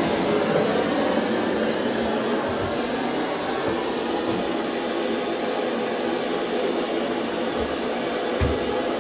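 Steady rushing noise throughout, with a few faint low thuds, the clearest near the end.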